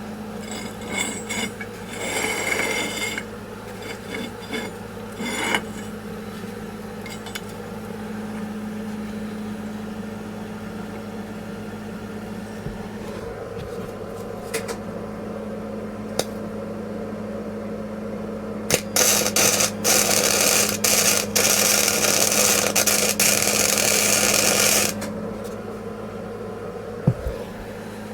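Arc welding on steel plate: a few short crackling bursts of tack welds, then a longer steady crackling weld of about six seconds, over a constant low hum from the welder.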